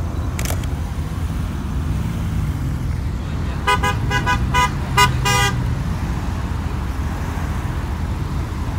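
Car horn honked in a quick run of short toots about four seconds in, the last one held a little longer, over a steady low rumble of car engines.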